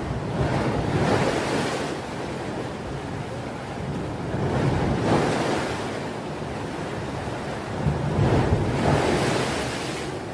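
Rough sea with waves surging and breaking, three big swells about four seconds apart.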